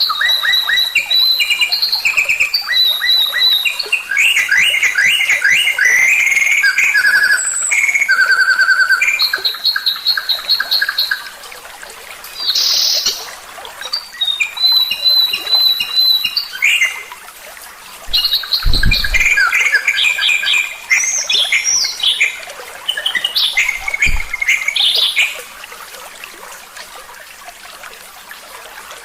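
Songbird song for masteran (a tutor recording used to teach cage birds their repertoire): rapid trills, clear repeated whistled notes and chattering phrases in bursts with short pauses, quieter near the end. Two brief low thumps come partway through.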